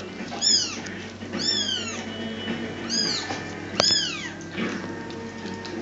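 Kittens mewing, a series of high-pitched cries that rise and fall, about one a second. A sharp click about two-thirds of the way through.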